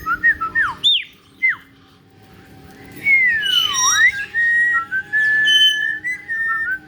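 Caique parrot whistling: a few quick falling chirps, then a sharp downward whistle about a second in. After a short pause comes a long note that slides down and back up, settling into a held whistle with small warbles.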